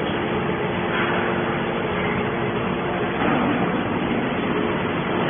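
Hydraulic scrap baler machine running: a steady, even mechanical noise with a faint steady tone in it.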